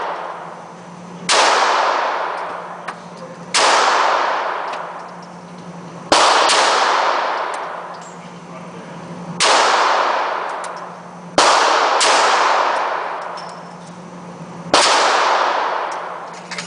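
Pistol shots at an indoor shooting range: about eight loud reports at irregular intervals, some in quick pairs, each ringing out for about two seconds in the range's reverberation, over a steady low hum.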